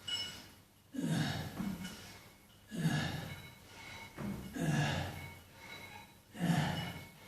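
A man breathing hard under exertion, with a forceful exhale or grunt about every two seconds in time with weight-lifting repetitions.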